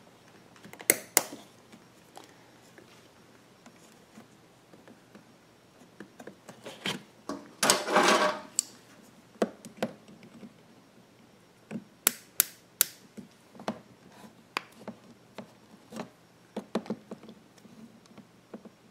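A small hose clamp being worked onto a 3/16-inch rubber fuel hose by hand with a small tool: scattered sharp clicks and ticks, a pair about a second in and three in quick succession around twelve seconds in, with a brief rubbing scrape about eight seconds in.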